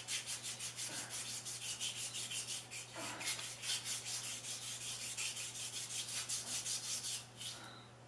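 Emery cloth being pulled back and forth around a tiller's steel tine shaft, in quick, even rubbing strokes about four or five a second, which stop shortly before the end. The shaft is being polished clean where the new tine oil seal will sit.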